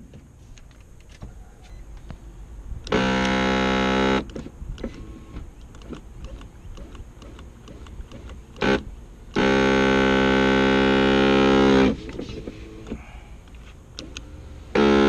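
Driver-side power window motor of a 2007 Nissan Murano running in four separate bursts of steady, even hum: one of about a second, a brief blip, a longer run of about two and a half seconds, and a short one at the end. This is a failing window motor and regulator on a window that won't fully go up.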